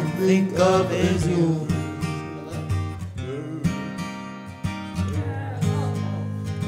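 Song accompaniment of strummed acoustic guitar chords in an instrumental gap between sung lines. A sung note trails off in the first second or so, then the chords carry on alone.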